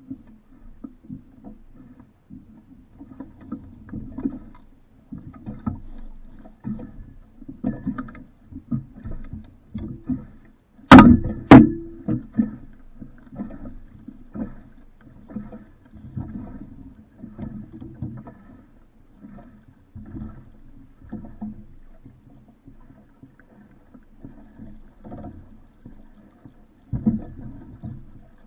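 Water sloshing and splashing irregularly against the hull of a small sailboat. Two sharp, loud knocks come close together about eleven seconds in.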